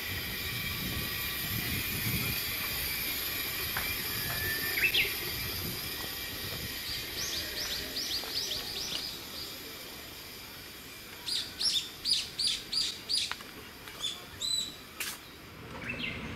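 Small birds calling over a faint steady hiss: a quick run of short chirps about halfway through, then a louder run of about eight sharp, evenly spaced notes, roughly three a second, a few seconds before the end.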